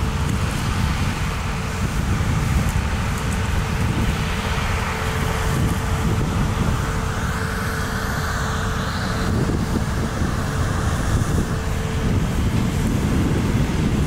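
Combine harvester at work threshing rapeseed: a steady, heavy engine rumble with a constant thin whine above it.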